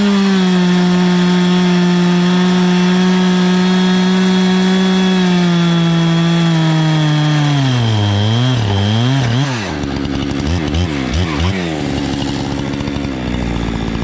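Chainsaw on an Alaskan chainsaw mill running hard at high, steady revs while ripping a 1-inch board. About five seconds in the engine slows. Its revs then rise and fall several times and it runs lower and unsteady, as at the end of the cut.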